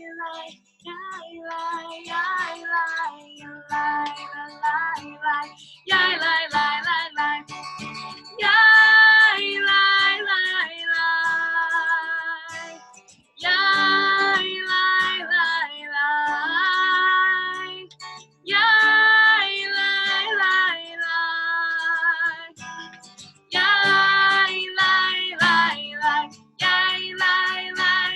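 A song with a woman and children singing over acoustic guitar.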